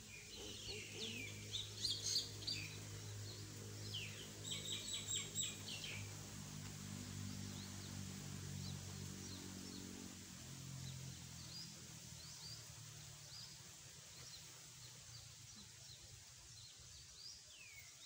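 Mynas calling: chirps and short down-slurred whistles, busiest in the first six seconds with a quick run of notes about five seconds in, then sparser. A low steady drone runs underneath for about the first ten seconds, then fades.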